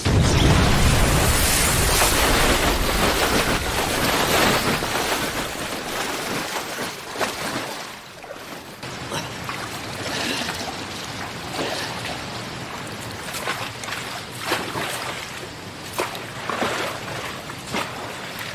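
Animated-fight sound effects: a loud rushing blast with a deep rumble in the first few seconds that dies away, then running water with small splashes and drips.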